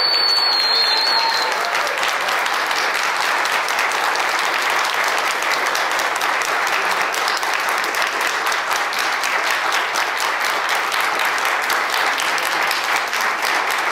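A large audience clapping in sustained, steady applause.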